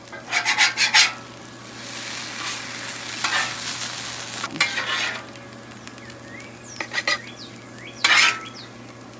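Metal spatula scraping across a Blackstone steel flat-top griddle as thick-cut bacon is pushed and lifted, with the fat sizzling underneath. Several short, sharp scrapes over a steady sizzle; the loudest come near the start and about eight seconds in.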